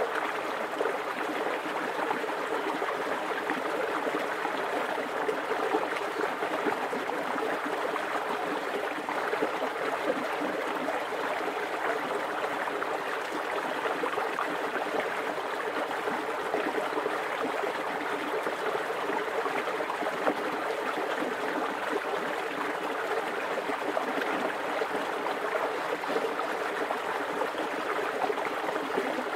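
Shallow creek flowing right in front of the microphone: a steady, unbroken rush of running water.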